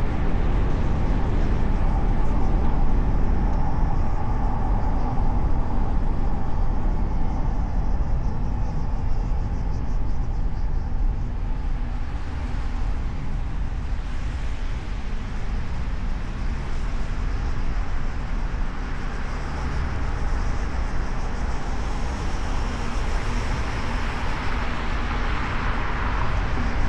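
Car driving through city traffic, heard from a hood-mounted microphone: steady road and engine noise with the sound of surrounding traffic. A louder hiss swells and fades near the end, as from a vehicle passing.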